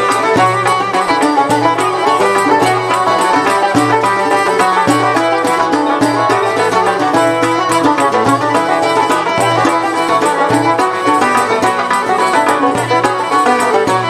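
Traditional ensemble playing an instrumental passage: violins and a banjo carrying the melody over a lute, with a tar frame drum keeping a steady beat.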